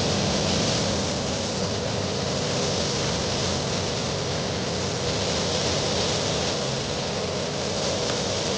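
Gravity-feed compressed-air paint spray gun hissing steadily as it sprays clearcoat, with a low steady hum underneath.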